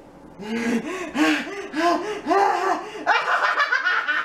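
A woman laughing: a cackle of about six short rising-and-falling syllables, a little under half a second apart, starting about half a second in.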